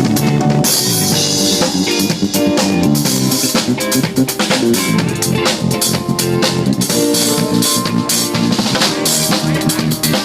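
Drum kit played along with a recorded pop song: kick, snare and cymbal strikes in a steady groove over the song's bass line and melody.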